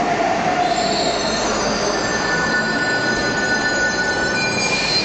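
Santiago Metro train running, heard from inside the car: a steady rumble with several high-pitched squealing tones that set in about a second in and hold steady.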